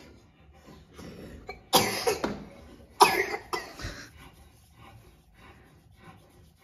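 A person coughing: two harsh coughs about a second apart, with a smaller one after. The cough is one that the whole household has.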